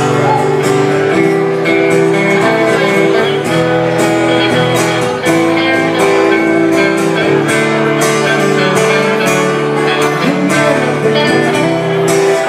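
Live acoustic and electric guitar duo playing a soft-rock song: strummed steel-string acoustic chords under an electric guitar part, steady and loud.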